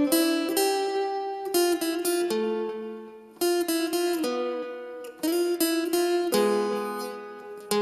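Crafter acoustic guitar playing a slow single-note melodic phrase. Each note is plucked and left to ring, with a couple of quick note pairs.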